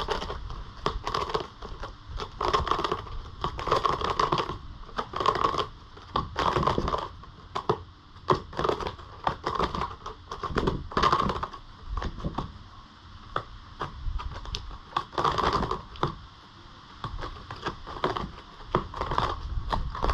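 Netherland Dwarf rabbit digging with its front claws at a corrugated-cardboard cat-scratcher roll: repeated bouts of rapid scratching and scraping with short pauses between them, muffled by a camera case.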